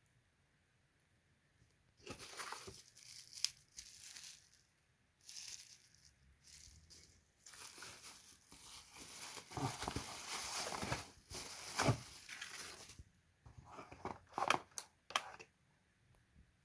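Packaging being opened: crinkling and tearing in irregular bursts with a few sharp knocks, starting about two seconds in and stopping shortly before the end.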